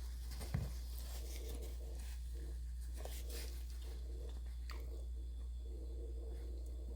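Close-up chewing and crunching of fried food, over a steady low hum, with a single thump about half a second in.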